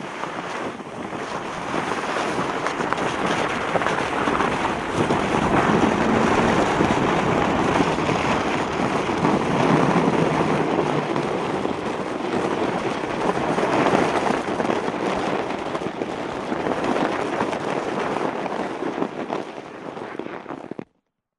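Skis sliding over snow: a continuous hissing scrape that swells and eases in long waves, then stops abruptly near the end.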